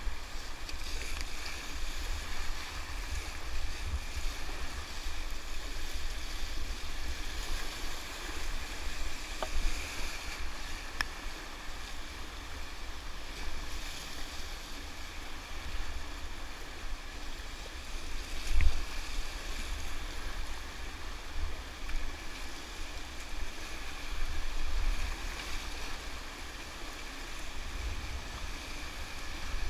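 Rushing whitewater of a river heard from a kayak, a steady hiss and rush, with wind buffeting the microphone in low gusts. There is one sharp knock about two-thirds of the way through.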